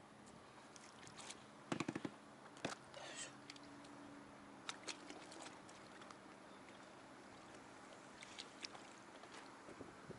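Scattered knocks and clicks of handling aboard a small fishing boat, the loudest cluster about two seconds in, over a faint steady hum.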